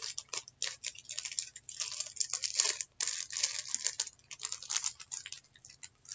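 Small packaging rustled and crinkled in the hands: a steady run of irregular little crackles and scrapes.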